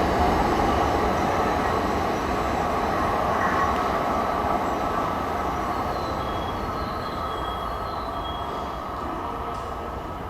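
Shinkansen train running on the rails, a steady rumble that fades gradually as it draws away, with faint high squeals partway through.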